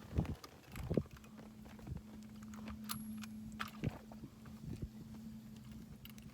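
Irregular knocks and clicks of handling inside a fishing boat, about a dozen, over a steady low hum.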